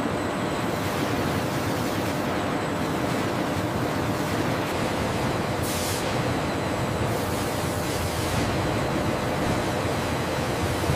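Steady machinery noise of a paper mill's reel winder running, an even rushing hum with a faint steady tone and a short hiss about six seconds in.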